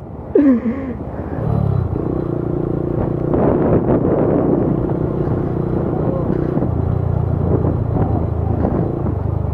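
Motorcycle engine pulling up to a steady cruise on the move, its note holding level and then dropping to a lower pitch about two-thirds of the way through as the throttle eases off, under a rush of wind and road noise.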